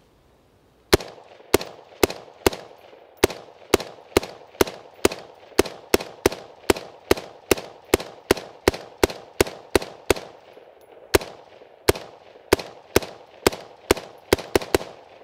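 A direct-impingement BCM AR-15 rifle fires a full magazine in steady semi-automatic shots, about two to three a second, with a short pause about ten seconds in and quicker shots near the end. The rifle is unlubricated and caked in years of carbon, yet it cycles every round without a stoppage.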